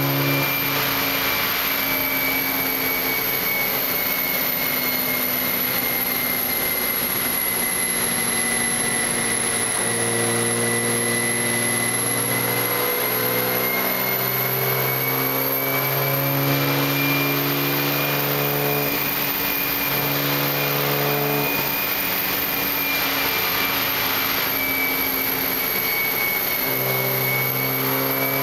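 A turbocharged Toyota Supra race car engine running on a chassis dyno. Its note holds steady but steps up and down in pitch every second or two, under a steady high whine.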